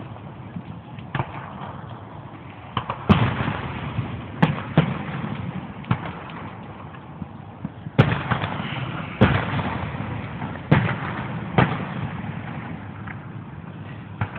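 Aerial fireworks shells bursting: about ten booms at irregular intervals, each trailing off in a rumbling echo.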